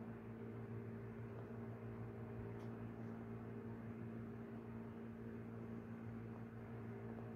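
Steady low machine hum with an even hiss underneath, unchanging throughout, and a couple of faint ticks about two and a half seconds in.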